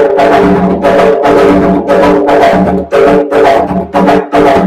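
Bomba barrel drum (barril) played with bare hands in a repeating pattern of ringing strokes, with short breaks in it: the Cuembé de Cataño bomba rhythm.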